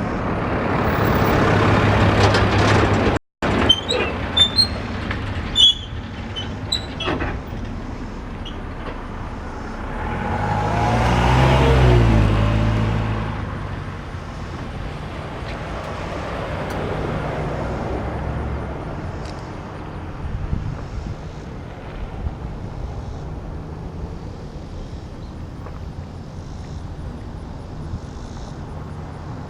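Freight train at a grade crossing: a loud pass-by that swells and fades about eleven seconds in, then steady rolling noise. A few sharp clicks and high tones come a few seconds in.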